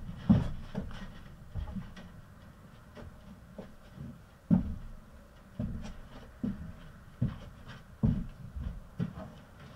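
A series of dull, low thumps, irregularly spaced at roughly one every half-second to second, the loudest about four and a half seconds in.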